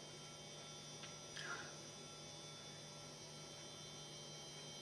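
Quiet room tone with a steady electrical hum, and one faint, brief sound about a second and a half in.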